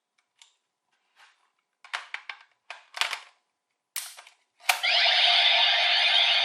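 Plastic clicks and rattles of a DX V-Buckle toy transformation belt being handled, in short scattered groups. About three-quarters of the way through, a sharp click triggers the belt's electronic sound effect, which starts and carries on.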